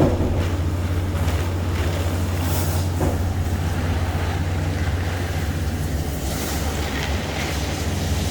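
Steady road and engine noise inside a moving car, a constant low drone with a hiss of tyres and air over it.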